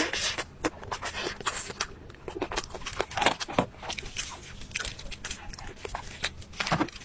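Close-up chewing and biting of crunchy food: a quick, irregular run of crunches and clicks.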